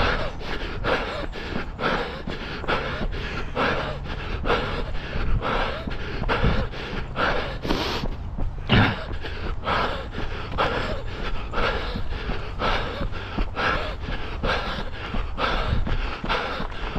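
A runner breathing hard at race pace: quick, evenly spaced panting breaths, about two to three a second, that break off briefly a little past halfway, over a steady low rumble.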